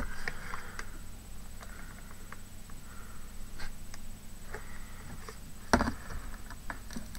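Small clicks and taps of craft pieces being handled and set down on a tabletop, with one louder knock about three-quarters of the way through.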